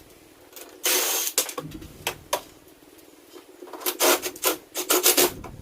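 Irregular scraping and rubbing from hands working parts: one long scrape about a second in, a few short ones, then a cluster of scrapes near the end.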